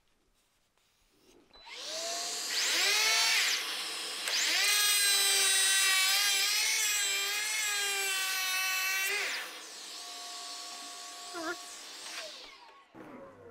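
Bosch GHO 12V-20 cordless brushless planer's motor starting with a rising whine, stopping briefly, then running again for about five seconds with a slightly wavering pitch as it takes a pass over wood. It then winds down, with a fainter tone and a falling whine near the end.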